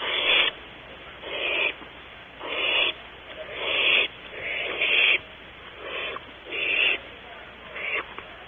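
Barn owl nestlings giving hissing begging calls: about eight hoarse bursts of roughly half a second each, one about every second.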